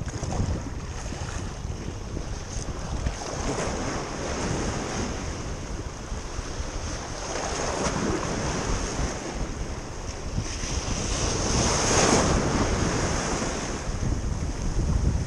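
Sea waves washing against a rocky shore, with wind buffeting the microphone. The surf swells and falls in surges, loudest about twelve seconds in.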